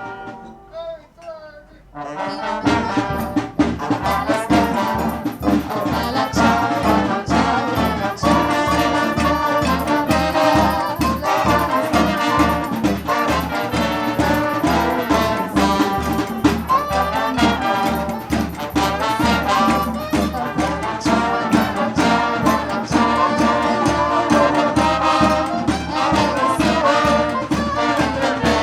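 Music with a steady beat. It starts about two seconds in, after a held chord fades out.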